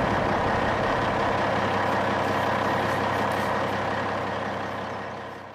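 Heavy truck engine running steadily, fading out near the end.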